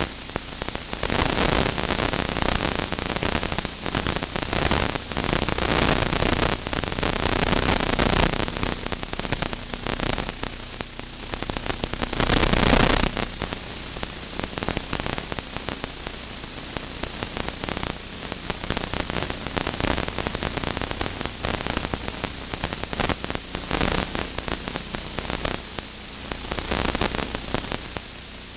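Basketball being played on a gym's hardwood court: irregular knocks of the ball bouncing and players' footfalls, over a steady hiss and low hum.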